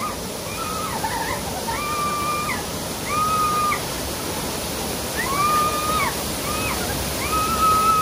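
Large artificial waterfall pouring steadily onto rock and water. Over it comes a series of high held tones, each under a second long, with pitches that bend at the start and end.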